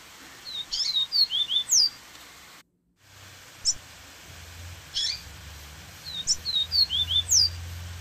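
Double-collared seedeater (coleiro) singing two quick phrases of sharp chirps and slurred whistles, with a couple of single notes between them. The sound cuts out completely for a moment a little before three seconds in.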